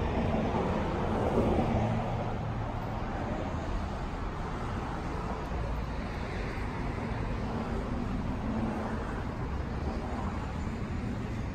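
Road traffic noise: a steady wash of passing cars, swelling a little in the first two seconds.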